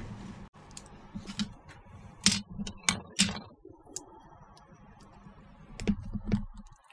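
Sharp clicks and light taps of small plastic model-kit parts and hobby tools being handled and set down on a cutting mat. A few come in quick succession two to three seconds in, and a few more near the end.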